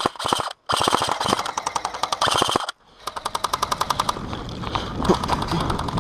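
Airsoft electric rifle firing on full auto: a rapid, even rattle of shots in long bursts, broken twice by short gaps, about half a second in and just before the three-second mark.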